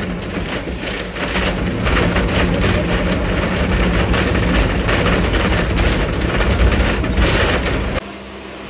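City bus engine running, heard from inside the passenger cabin: loud rumbling noise over a steady low hum, growing louder about two seconds in and cutting off suddenly near the end.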